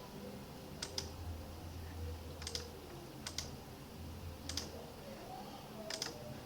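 Scattered keystrokes on a computer keyboard: about five pairs of sharp clicks, each pair a key pressed and released, spaced a second or so apart, over a faint low steady hum.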